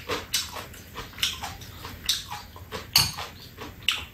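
Metal spoons clinking and scraping against ceramic bowls during a meal: a scattering of short, sharp clinks about a second apart.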